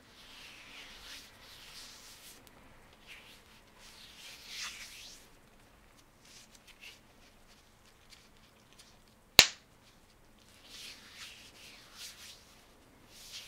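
Gloved hands in thin nitrile gloves rubbing and sliding against each other, a soft rustling rub that comes and goes, with one loud, sharp snap of the glove about two-thirds of the way through.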